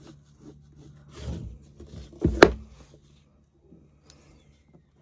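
Wooden cigar box being handled and rubbed by hand: light rubbing and small taps, a soft thump about a second in, then a sharp wooden knock about two and a half seconds in, the loudest sound.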